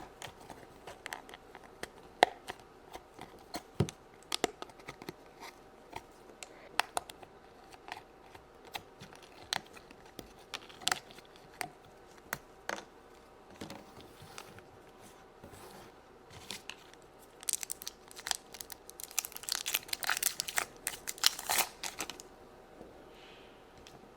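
Die-cut cardboard pieces being pushed out of their punch-out frame: a string of separate small snaps and tearing sounds, then a denser run of tearing and crinkling near the end.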